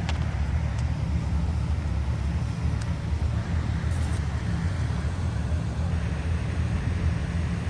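Outdoor city background noise: a steady low rumble like distant traffic, over a faint even hiss.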